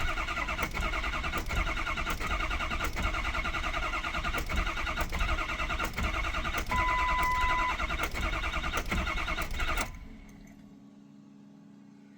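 A 2003 Ford 6.0 Power Stroke V8 turbo-diesel cranking steadily on the starter without catching: a crank-no-start. A short beep sounds partway through. The cranking stops just before the end.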